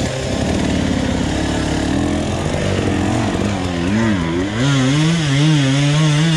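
Enduro motorcycle engine running under the rider, its revs rising and falling unevenly; about two-thirds of the way through the note settles into a steadier, higher rev.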